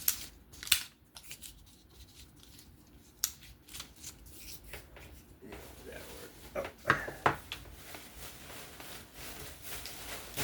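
Pocket knife being handled while its edge is checked: two sharp clicks at the start, small clicks and scraping, and a few louder clicks past the middle.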